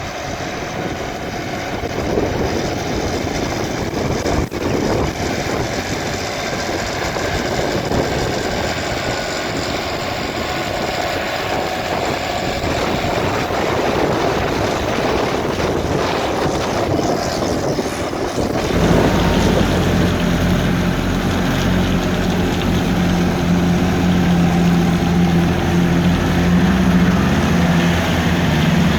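Case 1694 tractor's diesel engine working under load pulling a four-furrow plough. At first it is heard as a steady rushing noise with the engine less distinct; from about two-thirds through it becomes close and strong with a steady engine note.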